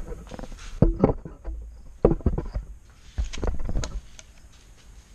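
Clanks and knocks of a Bike Hand folding bike repair stand being set up: a handful of sharp knocks over the first few seconds, then quieter handling.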